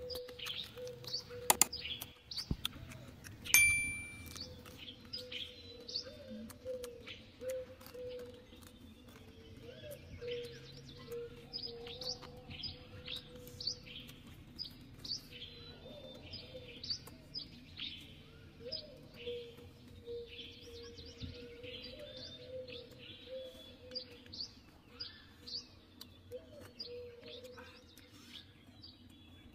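Forest birds chirping, many short high chirps repeating throughout over a steady lower warbling tone. A single ringing metallic clink sounds about three and a half seconds in.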